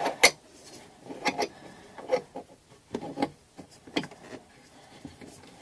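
Small metal clicks and scrapes of a washer and nut being fitted by hand onto a faucet's threaded mounting rod under a sink, with one sharp click just after the start and a few lighter clicks spaced about a second apart.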